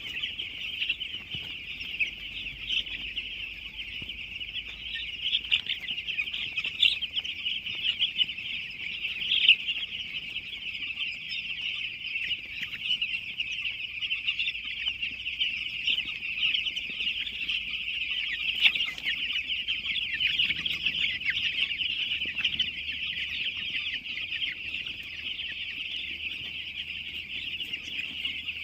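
A flock of chickens calling all at once: a dense, continuous, high-pitched chatter of many overlapping calls.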